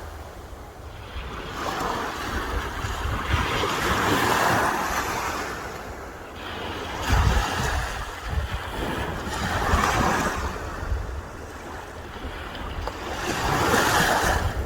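Sea waves breaking and washing up the shore, each surge swelling and falling away every three seconds or so. Wind buffets the microphone in gusts.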